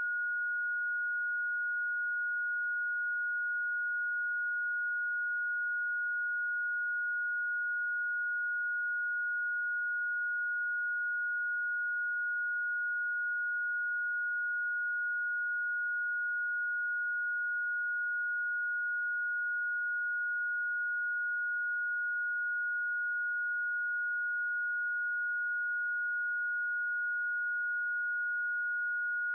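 A single steady electronic sine tone held at one high pitch without a break: a Rife frequency played as a bioresonance treatment tone.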